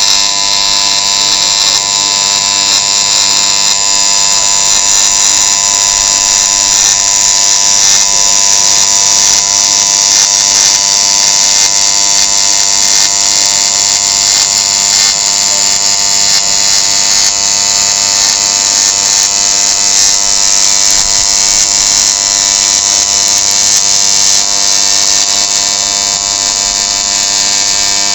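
TIG welding arc from a Panasonic BP4 power source on a welding robot, buzzing steadily and evenly at a high pitch.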